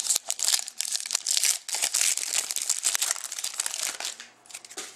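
Shiny foil wrapper of a 2011-12 Panini Certified hockey card pack crinkling as it is torn open and the cards are pulled out, the crackling dying away about four seconds in.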